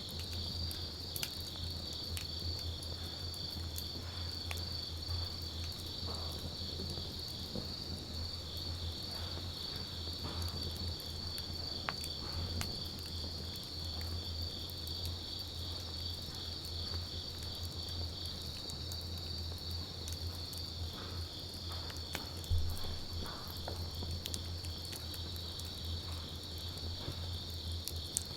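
Wood campfire crackling, with scattered sharp pops and one louder pop about three-quarters of the way through, over a steady high trill of insects.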